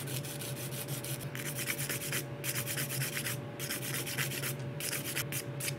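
Coarse 100-grit hand nail file rasping in rapid back-and-forth strokes over a gel nail, grinding the gel coating down, with a few brief pauses. A steady low hum from the nail-dust extractor fan runs underneath.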